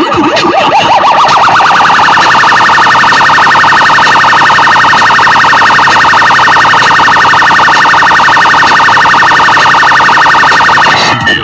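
A siren-like electronic warble, very loud, played through a car-trunk sound system: it glides up in pitch over the first second or so, then holds as a fast, even warble and breaks off near the end.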